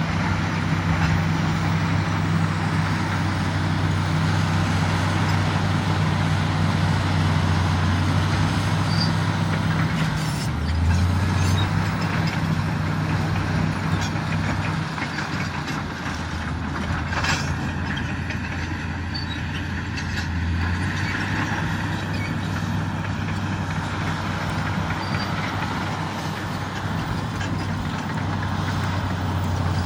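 Komatsu D85EX bulldozer's diesel engine running steadily, its pitch shifting up and down a few times as the load changes, with occasional knocks and clanks.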